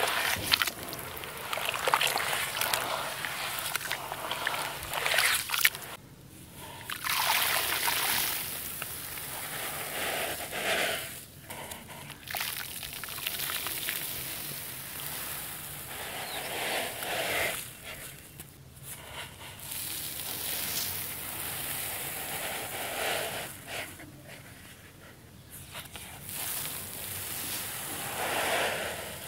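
Hands squishing and sloshing wet red clay mud in a basin of muddy water. Later, grainy crushed red dirt is poured into the water in long pours, with a few short pauses between them.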